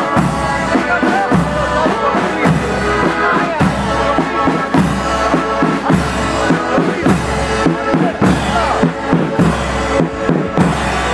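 Marching band of accordions, brass instruments and large bass drums playing a tune together, the drums striking a steady beat under the melody.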